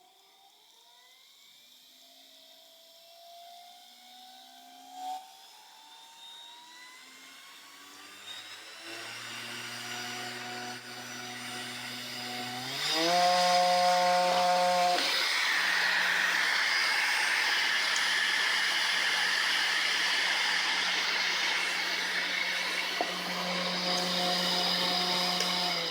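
Generic Chinese ER11 spindle motor running unmounted, its whine climbing in pitch as the speed is turned up from low to high. About halfway through it steps up sharply in loudness and settles into a steady high-speed whine with a lot of hiss, then winds down at the very end.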